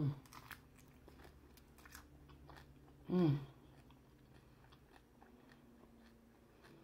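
Biting into and chewing a crunchy hard-shell beef taco, with many small crunches of the fried corn shell. A short hummed voice sound from the eater about three seconds in is the loudest moment.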